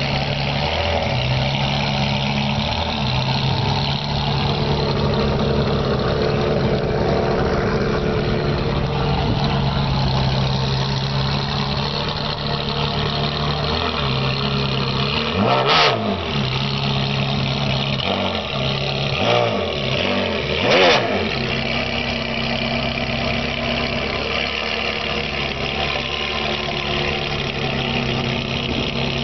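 Ferrari 360 Modena's 3.6-litre V8 running at low revs through a loud aftermarket exhaust as the car creeps forward, with a few short throttle blips about halfway through, the loudest one a few seconds later.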